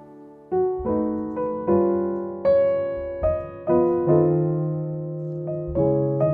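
Background music: piano playing a slow run of single struck notes, each ringing and fading, beginning about half a second in.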